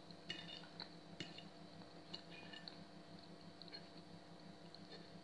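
Metal fork clinking lightly against a plate as boiled sweet potato is cut: a handful of faint, separate clinks, some with a short ring, over a steady faint hum.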